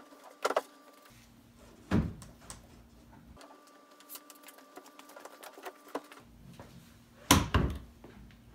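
Plastic rear bumper panel of a Sea-Doo Spark knocking and thudding against the hull as it is pushed back into place: three louder thuds, about half a second in, about two seconds in, and the loudest near the end, with light clicks between.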